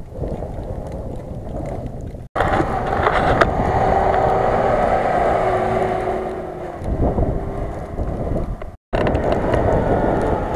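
Lada Niva 4x4 engine revving hard as it ploughs through deep snow, the pitch rising and falling, with wind on the microphone. The sound breaks off abruptly about 2 s in and again near the end, where the footage is cut.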